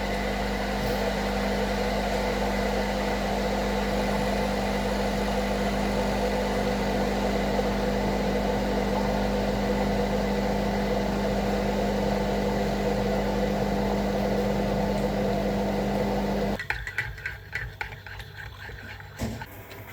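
A steady machine hum with a fixed pitch that stops suddenly about three-quarters of the way in, followed by a few quieter clicks and knocks.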